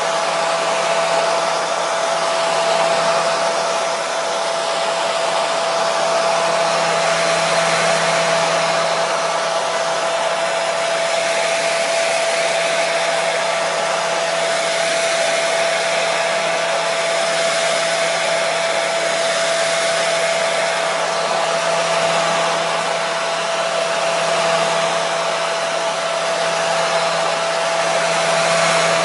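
Hair dryer running steadily: a continuous rush of air with a steady motor whine, unchanged throughout.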